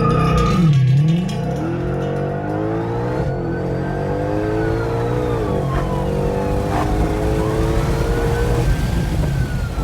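2020 Shelby GT500's supercharged 5.2-litre V8 at full throttle on a 0-100 mph run. Its pitch climbs through each gear and drops back at each automatic upshift, about every two to three seconds. From about two seconds in, a siren wails rising and falling over the engine.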